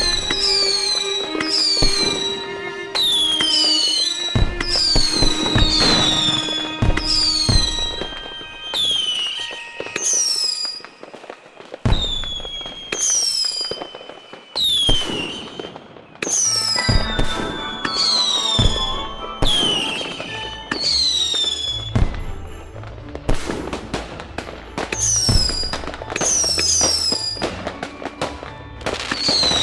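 Fireworks going off in quick succession: a run of whistles, each dropping sharply in pitch and then levelling off, mixed with many sharp bangs and crackles.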